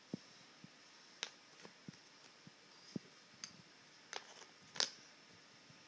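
Light, scattered taps and clicks of wooden puzzle pieces being picked up and set into a wooden frame-tray puzzle, the sharpest click about five seconds in.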